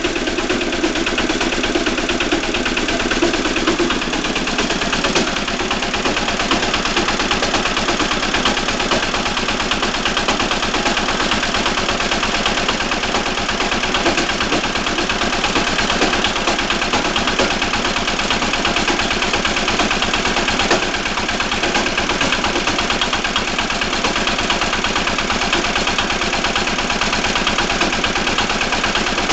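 Walk-behind tractor engine running steadily with a fast, even knocking from inside the engine, the knock that points to an internal fault.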